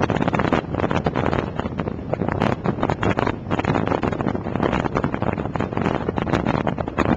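Wind buffeting hard on the camcorder microphone at road speed on a moving motorcycle, in irregular gusts, with motorcycle engine and road noise underneath.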